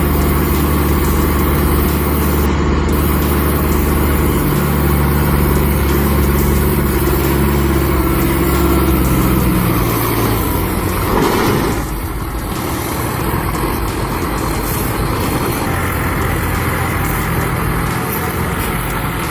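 Heavy diesel engine of earthmoving equipment running steadily with a strong low drone for about ten seconds. A brief rush of noise follows, then a quieter engine running to the end.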